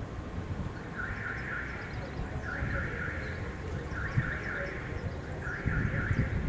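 Level-crossing warning bell ringing in regular bursts, about one every second and a half, over a low rumble as a train approaches.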